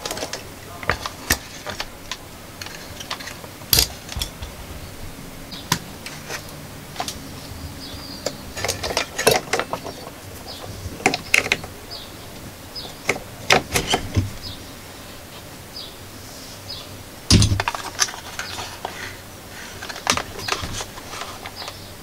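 Handling noises of an LED floodlight and its mains cable on a workbench: scattered clicks, taps and knocks as the lamp and its metal bracket are moved, with a louder thump about 17 seconds in.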